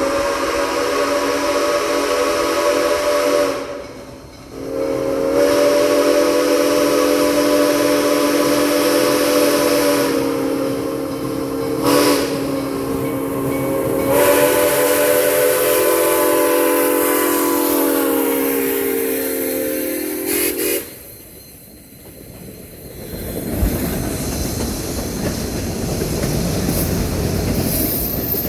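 Steam locomotive's six-chime whistle (a New York Central Hudson chime) blowing loud: a blast of a few seconds, then a long held blast of about sixteen seconds that cuts off suddenly, sounding as one chord of several notes. After it, the rumble of the train rolling along the track.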